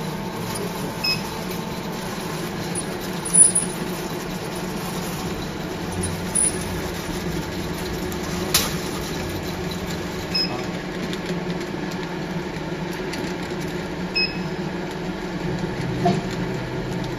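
Wave soldering machine running: a steady mechanical hum from its conveyor and drives, with a few short clicks and knocks, the sharpest about three and a half seconds in.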